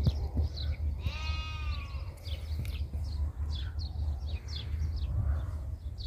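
A sheep bleats once, about a second in: a single call about a second long that falls slightly in pitch. Small birds chirp in the background.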